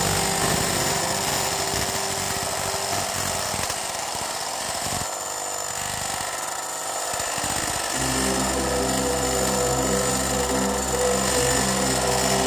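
Homemade mini wood lathe driven by a salvaged water-pump motor, running while a flat steel blade scrapes the spinning wood. The motor's steady hum comes through more plainly in the last few seconds.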